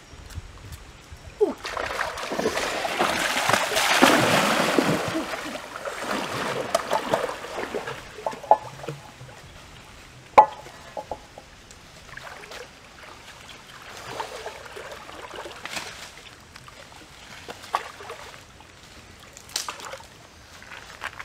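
Water splashing and sloshing for a few seconds, then a single sharp knock about ten seconds in as a small metal cooking pot is set down on the stones of a rock hearth, followed by light knocks and handling sounds.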